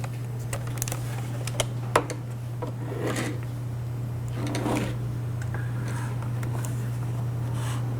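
Scattered clicks, taps and soft rustles of small objects being handled by hand, over a steady low hum.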